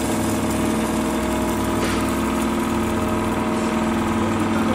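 10 HP cattle feed grinder running steadily, a continuous even mechanical hum as grain fed from the hopper goes through the grinder.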